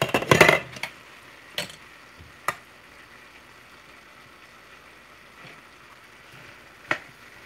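Vegetables sizzling faintly in a stainless steel pan as they are stirred with a metal slotted spoon. A loud scrape and clatter of the spoon against the pan right at the start, then a few sharp single clicks of metal on the pan.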